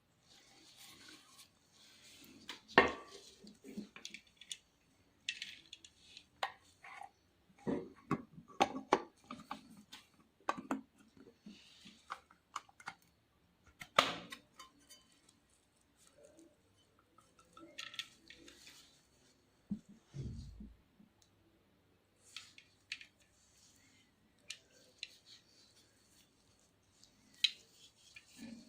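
An antique camera being handled: irregular clicks, knocks and short scrapes of its parts being worked, with sharp clicks about 3 and 14 seconds in and a dull thump about 20 seconds in.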